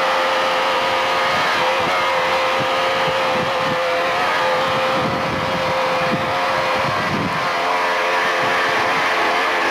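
An engine running steadily at a constant pitch.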